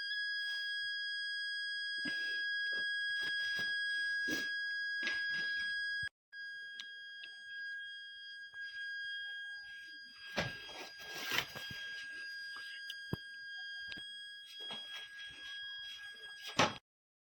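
Buzzer of a homemade rain detector alarm sounding one steady high-pitched tone, showing that water has reached the sensor and triggered the alarm. It cuts out briefly about six seconds in, then sounds more quietly until it stops shortly before the end, over clicks and rustles of handling.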